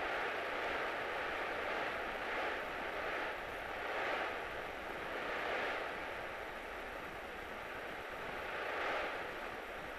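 Cabin noise of a light single-engine airplane in flight, heard through the headset intercom. The engine and airflow make a steady rushing hiss that swells and eases slightly, with a faint constant tone under it.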